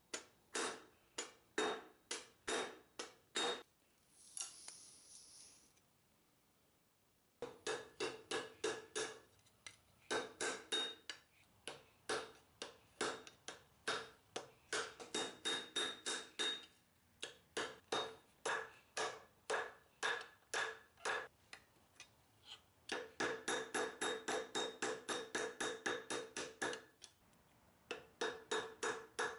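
A hammer striking red-hot lawnmower-blade steel on a steel block anvil, hand-forging the curved blade of a kukri. The blows come in runs of about four a second, each with a short metallic ring, with brief pauses between runs.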